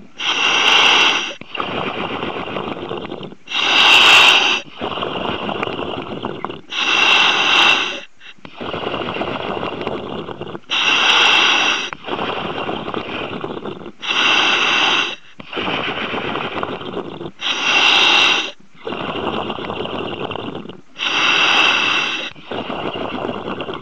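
A diver breathing steadily through a demand breathing apparatus, picked up on the diver's communications: seven breaths, each a short, bright hiss about every three and a half seconds, with a longer, lower rushing noise between them.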